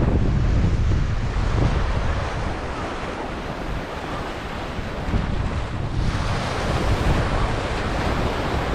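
Ocean surf washing onto the beach, with wind buffeting the microphone. The wash grows louder about six seconds in.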